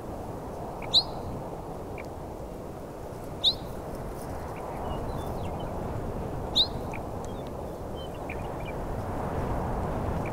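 A bird gives three short, sharp, downslurred calls a few seconds apart, with fainter chirps from other birds, over a steady rush of wind.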